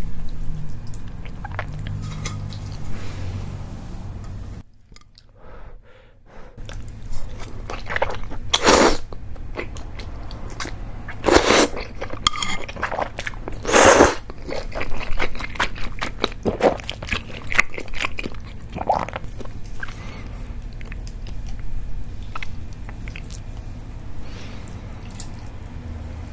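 Close-miked eating of mentaiko cream udon noodles: steady wet chewing and mouth sounds, with three louder noisy bursts at about 9, 11 and 14 seconds in. There is a short quiet pause about 5 seconds in.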